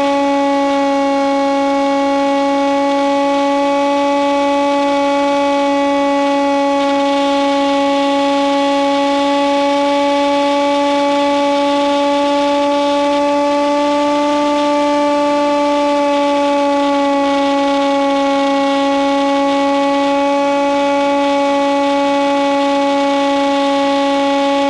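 Stock electric motor and propeller of a Nitroplanes Hawk Sky model plane, whining at a steady cruise throttle. The pitch rises slightly about halfway through, then settles back.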